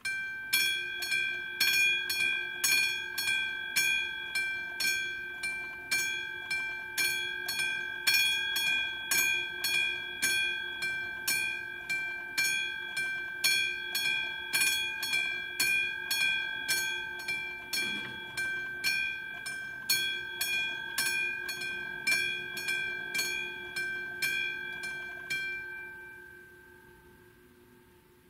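Electronic warning bell of an AŽD 97 level crossing signal ringing in a fast, even series of about two strikes a second, each with a clear, high, bell-like tone. It starts at once as the crossing's red lights come on, warning of an approaching train. About 25 seconds in it stops, and the last ring fades out over a second or two.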